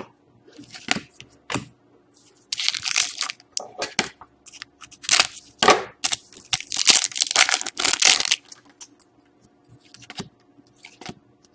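Trading-card pack wrapping crinkling and tearing as cards are handled, in several irregular bursts, the longest around the middle.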